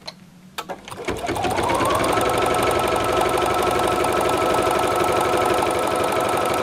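Bernina embroidery machine with the CutWork tool starting its cutting run: a few clicks, then the motor rises in pitch over about a second and settles into steady fast running, the needle bar stroking rapidly up and down as it drives the cutting blade.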